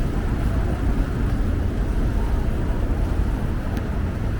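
Outdoor street noise: a steady low rumble of road traffic under an even hiss.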